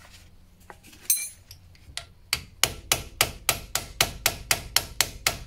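Rapid, even metal-on-metal strikes, about three to four a second, on the wheel hub cap of a 1999 Opel Astra, knocking at it to reach the hub bearing. A single ringing strike comes about a second in, before the steady run starts.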